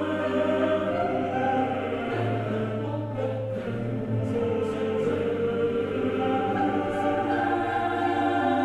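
Background music: a choir singing long held notes over a low steady tone.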